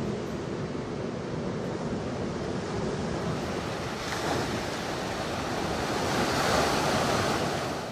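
Ocean surf breaking on the shore, a steady wash of waves that swells about four seconds in and grows louder near the end.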